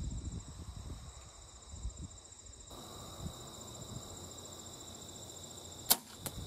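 Crickets chirring steadily, then near the end one sharp loud smack of an arrow from a compound bow striking a cardboard deer target backed by a hay bale, with a smaller click just after.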